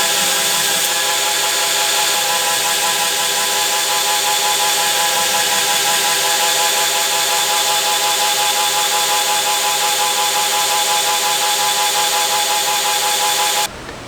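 An electric power tool running steadily, a hissing, even noise over a steady motor hum, as used in shaping a steel knife blade; it cuts off suddenly near the end.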